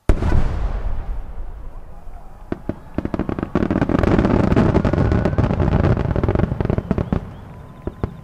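Large aerial fireworks shells bursting: one heavy boom with a long rumbling decay at the start, then dense crackling and popping from about two and a half seconds in, fading near the end.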